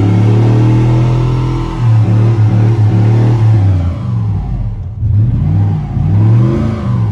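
Pickup truck engine held at high revs while doing a burnout, spinning the rear tire in thick smoke. It holds one steady pitch for about two seconds, then revs drop and climb again several times near the end.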